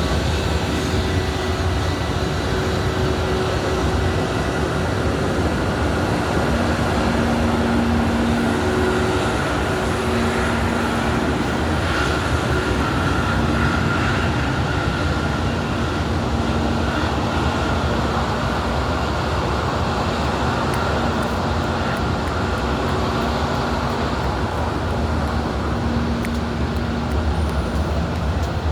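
Steady vehicle running noise, a low rumble with a few faint humming tones that come and go.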